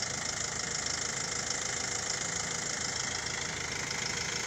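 Truck engine of a truck-mounted boom lift running steadily at idle.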